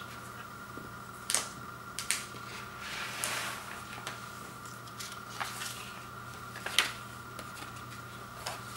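Vinyl LPs and a shrink-wrapped record jacket being handled on a wood floor: a few short taps and clicks, one longer rustle as the jacket and paper inner sleeves are slid about, and the sharpest click near the end as a record is lifted out of its sleeve. A steady faint hum runs underneath.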